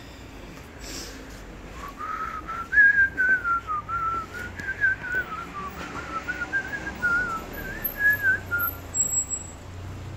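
A person whistling a tune: a single wavering melody that starts about two seconds in and runs for about seven seconds.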